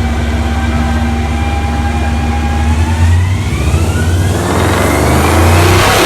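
GAZ Volga's ZMZ V8 on custom exhaust headers running under way, then accelerating. A whine rises in pitch from about halfway through, and the engine sound swells louder near the end.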